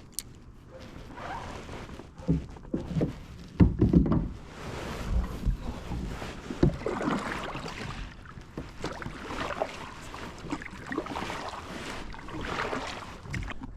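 Kayak on the water: repeated swishes of paddle strokes or water against the hull, coming every second or two, with a few loud low thumps a couple of seconds in.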